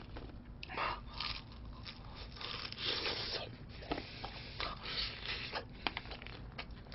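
Crispy fried chicken being torn apart by hand and bitten into, the batter crackling and tearing with scattered short clicks.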